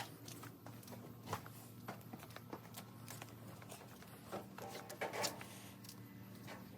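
Scattered light clicks and knocks of handling, a few a second at most, over a faint steady low hum.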